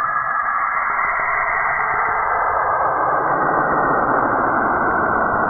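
Saturn's radio emission recorded by spacecraft and converted to sound: a dense, steady hiss and rush of noise. From about two seconds in it spreads down to lower pitches and grows slightly louder.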